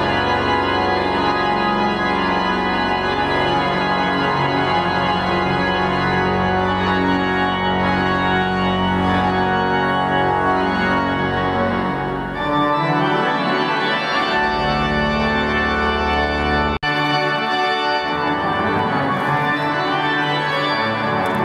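Large church pipe organ, Hallgrímskirkja's Klais organ, playing full held chords that ring in the church. The sound breaks off for an instant about 17 seconds in and then carries on.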